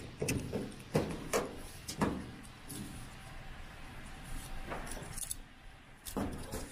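Metal ratchet buckle of a tie-down strap clicking and clacking as it is worked open and the strap is loosened: a run of sharp clicks in the first two seconds, then a few more near the end.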